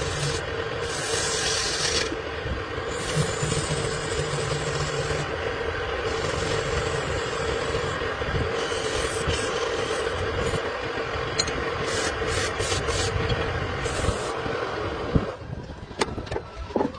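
A power tool running steadily on wood, with a constant hum under a rough grinding noise. It stops about fifteen seconds in, followed by a few sharp clicks.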